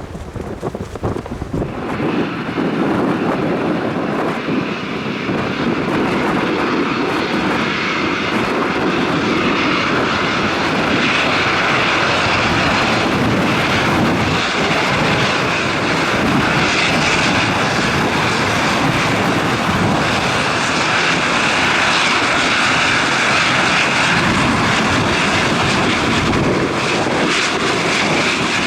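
Airliner engines at close range, coming up about two seconds in and then running loud and steady: a high whine over a steady rush. Gusts of wind hit the microphone at the start.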